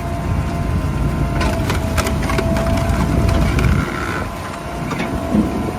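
Heavy wood-processing machinery running with a steady hum, with sharp cracks of wood being broken about a second and a half to two seconds in and again near the end. The low rumble drops away about four seconds in.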